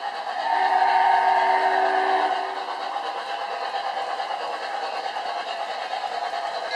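An O-scale model train's sound system sounds its horn once, a chord of several steady pitches held for about two seconds, starting about half a second in. Under it and after it, the train runs with a steady rolling noise.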